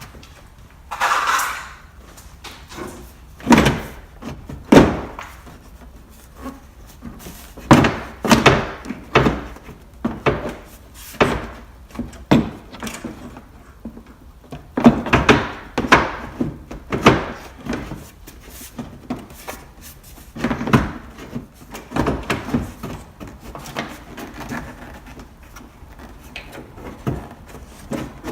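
Irregular knocks and clunks of a 2010 Chevy Cobalt headlamp assembly being worked and pushed back into its place in the front end.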